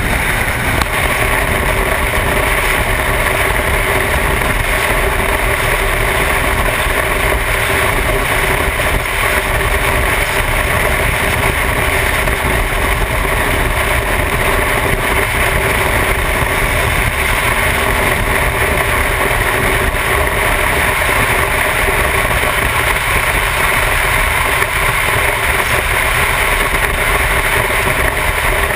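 Motorcycle cruising at a steady highway speed: its engine running at constant revs under a steady rush of wind and road noise.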